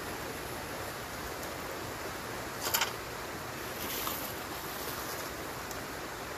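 Steady wind noise on the microphone, with a quick cluster of three sharp clicks about two and a half seconds in and a short high hiss about a second later.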